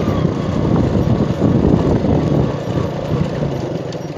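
Motor vehicle running with rough engine and road noise.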